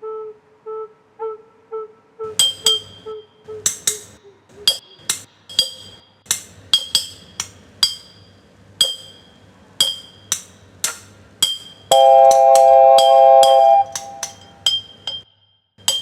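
Experimental soundscape music: a short note repeated quickly at first, then irregular glassy clinks and taps that ring high, with a loud held recorder tone about twelve seconds in.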